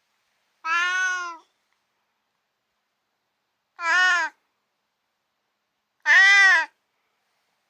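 Female pet cat meowing three times, a few seconds apart, each meow rising then falling in pitch.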